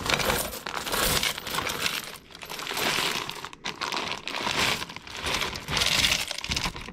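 A large pile of loose coins, many of them quarters, poured into a change container, jingling and clinking without a break. It swells and eases in several pours and stops near the end.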